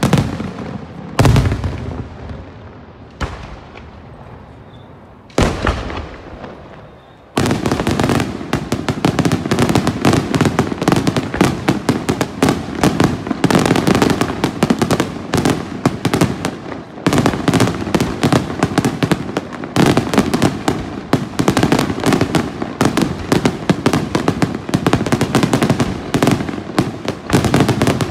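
Daytime aerial fireworks bursting: three separate loud bangs in the first six seconds, each dying away, then from about seven seconds in an unbroken rapid barrage of bangs.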